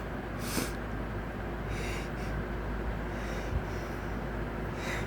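A man sniffing and breathing through his nose, four short hissy sniffs about a second and a half apart, his nose irritated in the middle of a sneezing fit.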